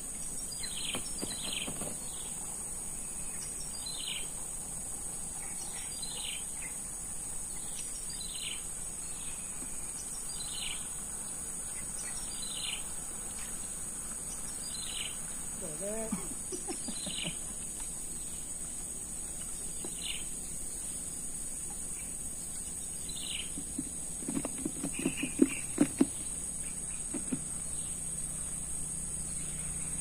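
Steady high-pitched insect drone, with a bird repeating a short falling call about every two seconds. Near the end, a quick cluster of sharp knocks, the loudest sounds.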